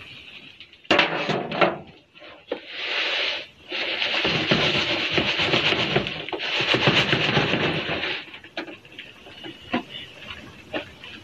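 Mealworm bedding, with worms and pupae, rustling and scraping against the mesh as a wooden-framed sieve box is shaken, in several long surges with a few knocks of the frame. It quietens near the end.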